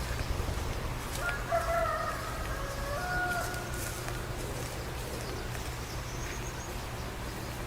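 Rooster crowing once, a single long call of about two seconds, over a steady low rumble.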